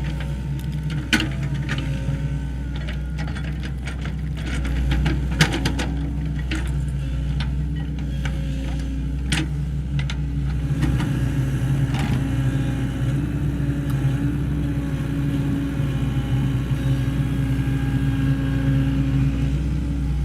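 Sany SY75C excavator's diesel engine running steadily under load, with a hydraulic whine that rises and falls and scattered sharp knocks and clanks, thickest in the first half.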